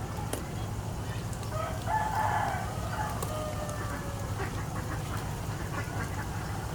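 A rooster crowing once, a call of about two seconds ending in a falling note.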